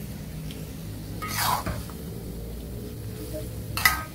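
A metal spoon scraping against a metal wok as shelled razor clam meat is stir-fried: once about a second and a half in, then a shorter, sharper scrape near the end, over a low steady hum.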